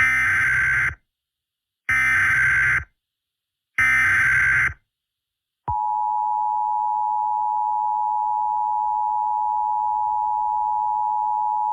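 Emergency Alert System tones: the SAME digital header sent three times as about one-second bursts of harsh warbling data tones, about two seconds apart, which encode the alert's originator, event and area. About two seconds after the third burst the steady two-tone EAS attention signal (853 and 960 Hz together) starts and holds.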